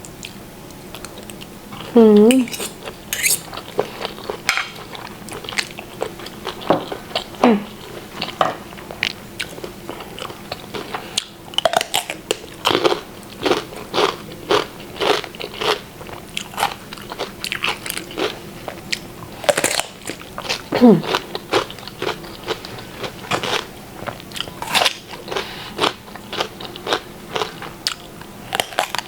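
Close-up mukbang eating sounds: a mouth chewing stir-fried holy basil mushrooms and fried egg, with frequent wet smacks and crunches. A few short hummed vocal sounds break in, the loudest about two seconds in.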